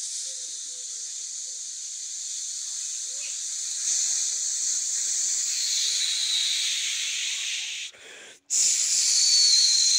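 A man imitating an aeroplane with his mouth: a long, steady, breathy hiss that swells slightly. It breaks off briefly just after eight seconds, then comes back louder with a faint falling whistle.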